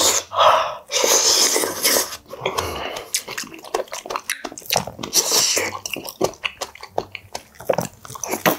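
Close-miked eating: loud breathy blows and slurps at spoonfuls of hot food from a wooden spoon, in the first two seconds and again around five seconds in. Between them come many short wet chewing clicks and lip smacks.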